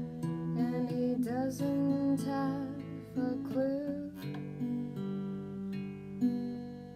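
Acoustic guitar strummed and picked, its chords ringing on. A wordless voice glides over it in the first three seconds or so, then the guitar carries on alone.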